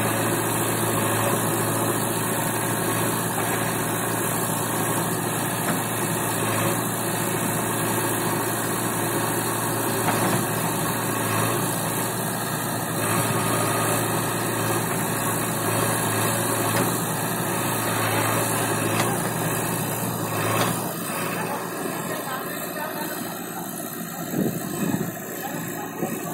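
JCB backhoe loader's diesel engine running steadily while the backhoe arm digs; the low engine drone drops off about three-quarters of the way through.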